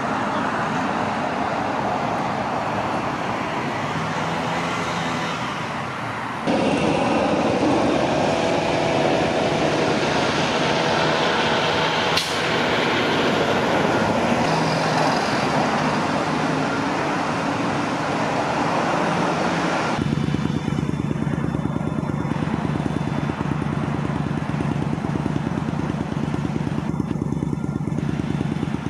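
Road traffic passing, with the steady noise of car and truck engines and tyres. The background changes abruptly about six seconds in and again around twenty seconds.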